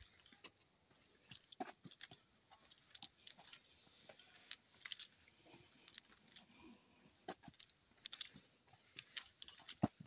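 Footsteps on a dirt forest trail with scattered twigs and dry leaves: irregular soft crunches and clicks, a few steps a second.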